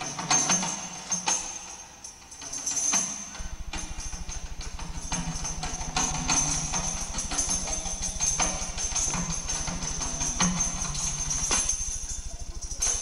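Stage music with jingling percussion and sharp, irregular strikes. A low buzz joins about three seconds in and continues.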